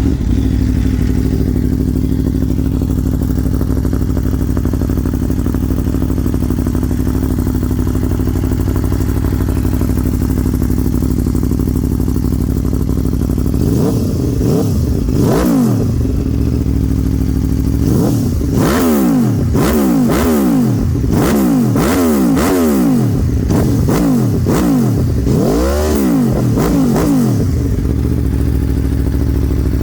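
Aprilia Tuono V4 1100's V4 engine idling through an aftermarket Akrapovič exhaust with its butterfly valve cables disconnected. It is revved once about 14 seconds in, then blipped repeatedly in quick succession between about 18 and 27 seconds, each rev rising and falling, before it settles back to a steady idle.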